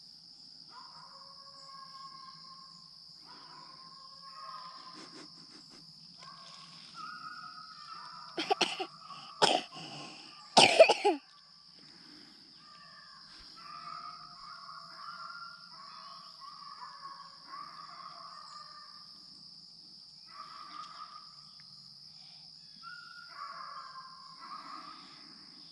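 A person close by coughs several times, loud short bursts about eight to eleven seconds in. Under it runs a steady high insect drone, and faint dogs bay on and off while running a rabbit.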